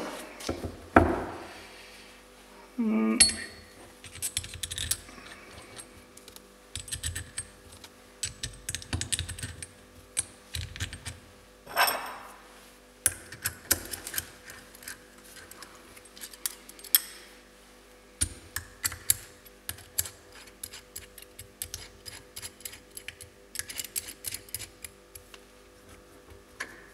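Small machined metal parts clicking and clinking on a workbench as they are put together, with the light clicks of an Allen key turning socket head cap screws; the sharpest knocks come about a second in and again about halfway through.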